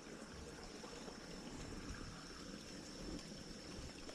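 Faint, steady rush of flowing creek water, the creek running high.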